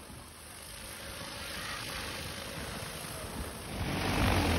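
Rotors of a large agricultural spraying drone humming, growing much louder near the end.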